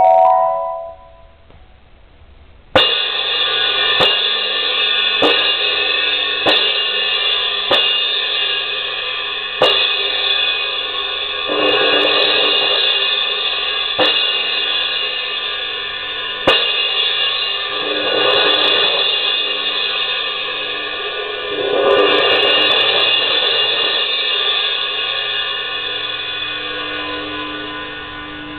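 Suspended cymbal played with soft mallets: a loud stroke about three seconds in, then single strokes every second or so with a few swelling rolls, the cymbal ringing on throughout and slowly dying away near the end.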